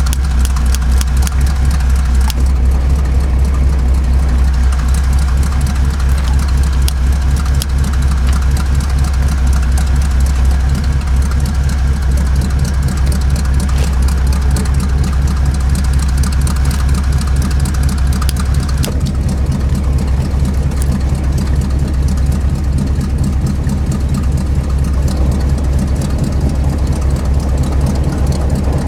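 Truck engine idling steadily, a low, even rumble with a fast regular pulse; a higher steady hum in the mix stops about 19 seconds in.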